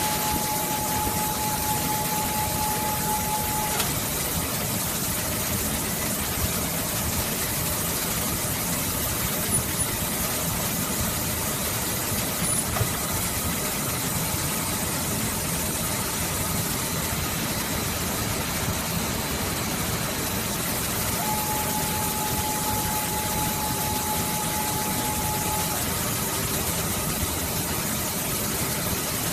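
Steady hum of factory machinery, with an automatic wire coiling and tying machine twice giving a steady whine for about four seconds, first at the start and again past the middle, as it runs a coil.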